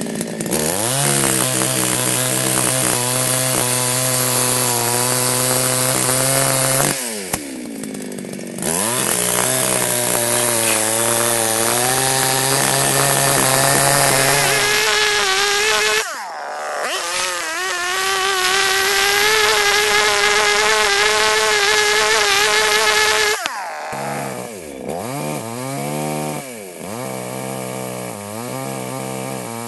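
Cheap Chinese Baus two-stroke chainsaw cutting logs at high revs. The revs drop off and climb back twice between cuts. For roughly the last quarter it runs lower and unsteadily, with short blips of throttle.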